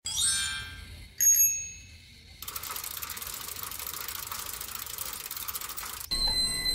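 Bright bell-like dings ring out twice in the first second and a half, then the steady, high-pitched whir of a battery-powered Plarail Thomas toy train running along its plastic track. Another ding sounds just before the end.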